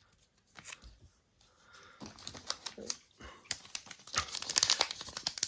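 A Kayou Naruto trading card booster pack's plastic wrapper being crinkled and torn open by hand: faint rustles at first, then dense crackling from about two seconds in, loudest near the end.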